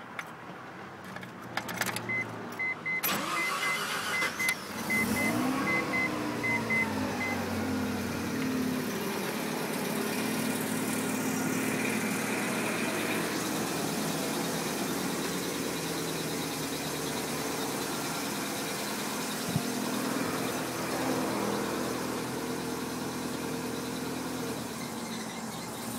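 Stock Mazda RX-7 FC's 13B rotary engine cold-starting: a warning chime beeps about twice a second while it cranks briefly. It catches, flares up in revs and settles to a steady fast cold idle. There is a single sharp click about 20 seconds in.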